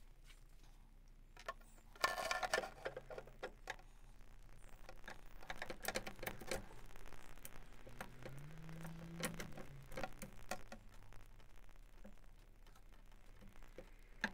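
Faint handling sounds of a steering shaft being fed through and fitted by hand: scattered light metal clicks and taps, a short rustle about two seconds in, and a brief low tone that rises and falls around the middle.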